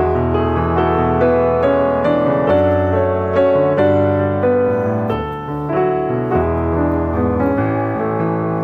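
Background music: a gentle piano melody over a bass line.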